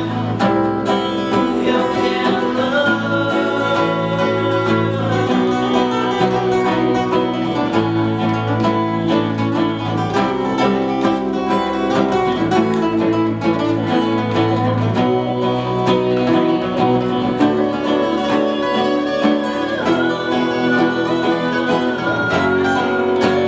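An acoustic band playing a song: several acoustic guitars over a bass guitar, at a steady, even loudness.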